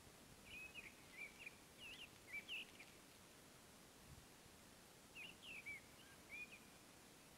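Faint birdsong: two short bursts of quick, twittering chirps, the first starting just after the opening and the second about five seconds in, over a quiet hiss of background noise.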